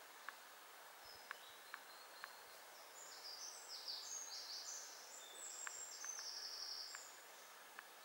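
Faint high-pitched songbird chirping, a quick run of short notes for a few seconds through the middle, over quiet woodland ambience with a few scattered faint ticks.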